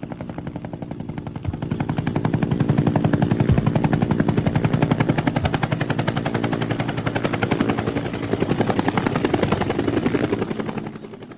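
Audience applauding: dense clapping that starts abruptly, swells over the first couple of seconds, holds, then dies away near the end.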